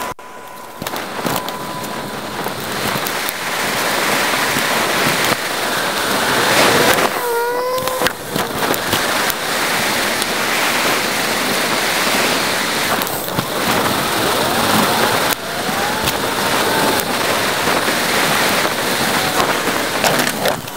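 Wind and road noise rushing over a bike-mounted camera's microphone while cycling, played back eight times faster, a steady loud hiss with a few brief gliding chirps.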